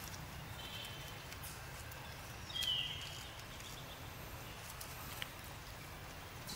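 Infant long-tailed macaque giving one short, high squeal that falls in pitch, about two and a half seconds in, over a steady low background hum.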